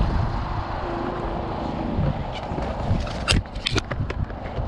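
Wind buffeting the camera microphone, with a quick cluster of sharp clicks and rattles a little past halfway as a tie-down strap and its metal hook are handled.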